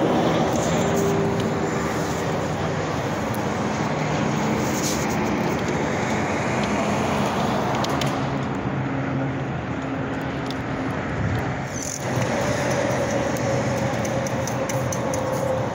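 Steady road traffic noise, a continuous roar with faint engine tones wavering through it. It shifts abruptly about twelve seconds in.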